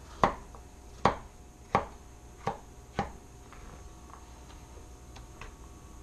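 Knife chopping vegetables on a cutting board: five sharp chops spaced under a second apart in the first three seconds, then a few faint light taps.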